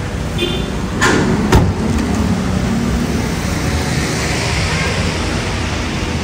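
Steady vehicle noise, with a short clatter about a second in and a sharp knock just after.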